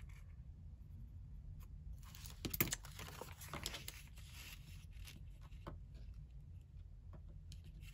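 A sheet of paper rustling and crinkling as it is handled and lifted off the journal page, with a sharp tap about two and a half seconds in.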